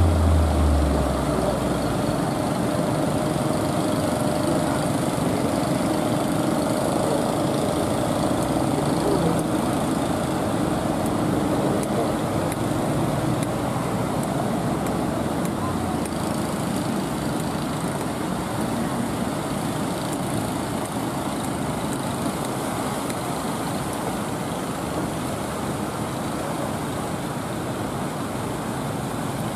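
Wooden fishing boats' engines running steadily under the rush of breaking surf.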